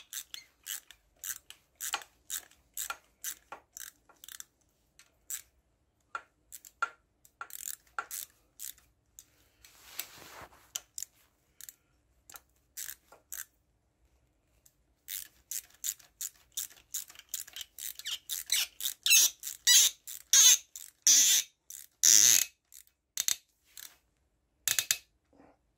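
Rapid short clicks and squeaks from a socket wrench turning a tight cam cap bolt out of a Kawasaki Z1100 cylinder head. The clicking comes in spurts, stops briefly about halfway through, then returns louder and faster.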